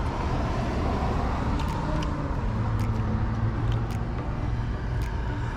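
Steady low engine hum of an idling vehicle, with a few faint clicks.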